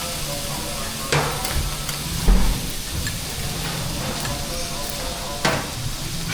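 Fried rice sizzling on a teppanyaki griddle as it is stirred, with three sharp knocks, the loudest about two seconds in.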